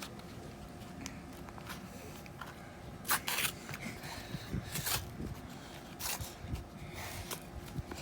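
Cardboard milk carton being handled and opened: several short scraping, crinkling rustles, the loudest about three seconds in, more near five and six seconds, with small clicks between.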